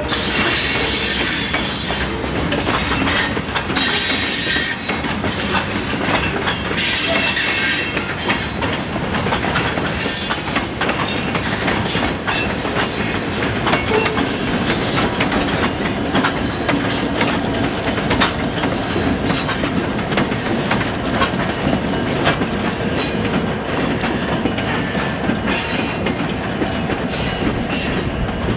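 Freight train rolling past: a steady rumble with the clickety-clack of wheels over rail joints, and high-pitched wheel squeal, strongest in the first several seconds and returning briefly later.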